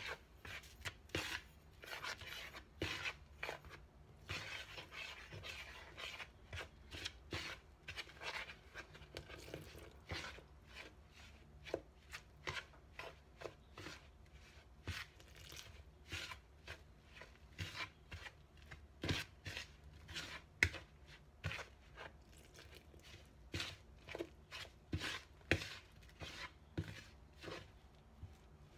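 A hand working flour in a plastic mixing bowl, a run of short dry scuffs and rubs, roughly one or two a second, as water is mixed into the flour for dough. A softer, continuous rustle runs from about four to ten seconds in.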